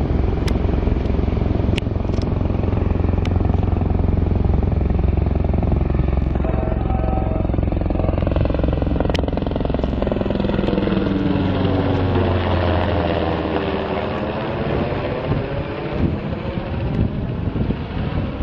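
Large helicopter flying low overhead: a steady low drone, then, from about a third of the way in, a sweeping, phasing sound that falls and rises again as it comes over.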